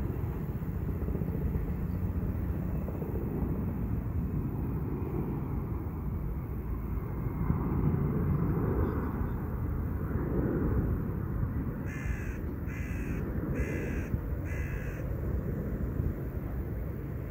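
A bird gives four short calls in a row, a little under a second apart, about twelve seconds in, over a steady low background rumble.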